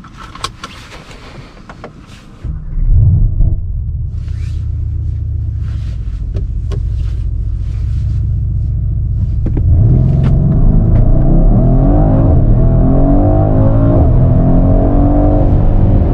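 Mercedes-AMG GLC 63 S Coupé's 4.0-litre biturbo V8 heard from inside the cabin. About two and a half seconds in the engine sound cuts in with a loud burst, then holds a steady low rumble with the car at a standstill. From about ten seconds in the car accelerates hard, the revs rising and dropping back at several quick upshifts.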